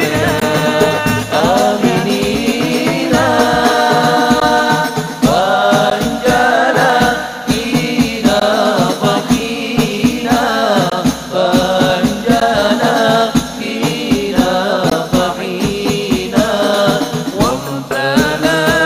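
A group of men singing a devotional shalawat chant, accompanied by a steady rhythm on rebana frame drums with jingling brass discs in their rims.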